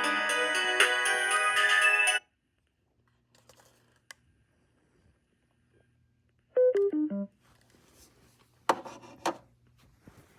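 Music playing through a Bluetooth speaker cuts off suddenly about two seconds in. After a pause the speaker sounds a short chime of four falling notes, like a power-off or disconnect tone, followed by two sharp clicks near the end.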